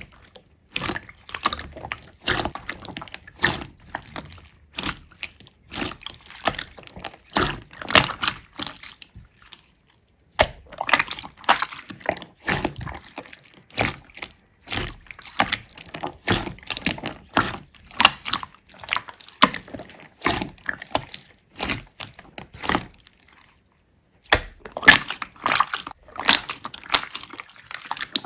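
Slime being squeezed and pressed by hand, a dense, irregular run of wet clicks, pops and squelches with two short breaks.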